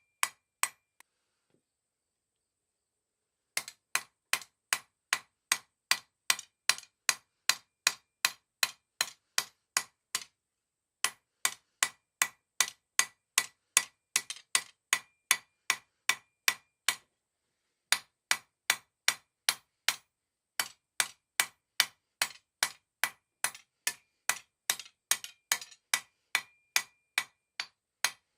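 Hand hammer striking a 1/2 inch mild steel round bar on an anvil, about three blows a second in runs broken by short pauses, with a ringing note between blows.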